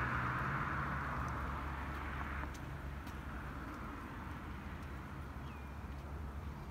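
Piper PA-44-180 Seminole light twin, its two piston engines and propellers droning overhead as a low steady hum that slowly fades. A broader rush over it stops about two and a half seconds in.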